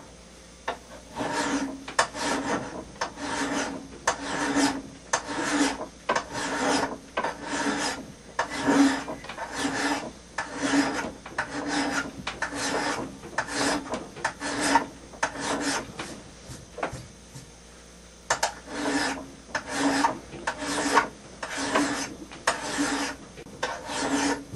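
Hand file pushed in repeated strokes along the bevel of a steel hand axe head, a rasping scrape about one and a half times a second, with a short pause about two-thirds of the way through. These are the one-direction finishing strokes of sharpening, worked slowly up the blade.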